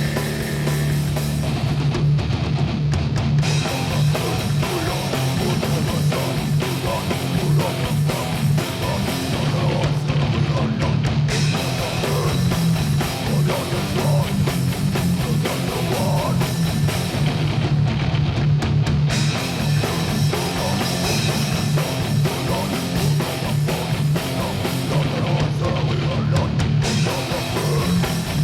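Rock music with electric guitar and drum kit, playing steadily.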